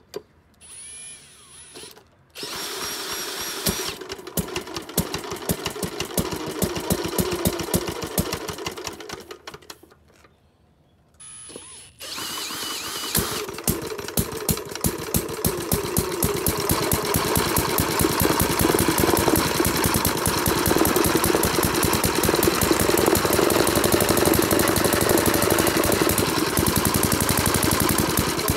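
1925 Briggs & Stratton Model PB single-cylinder engine spun over with a cordless drill on the flywheel nut: it catches and runs with a rapid even firing beat, dies out after about seven seconds, and is spun up again. It catches again and keeps running steadily while its carburettor needle is adjusted. The engine runs well but won't keep running long.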